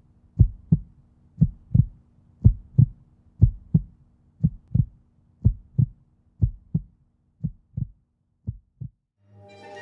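Heartbeat: paired low thumps, lub-dub, about once a second, growing fainter toward the end. Music starts to swell in just before the end.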